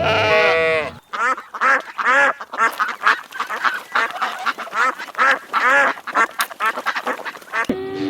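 A drawn-out bleat ends about a second in, then a flock of farm fowl calls rapidly, many short overlapping calls several a second. Near the end a lower, longer animal call begins.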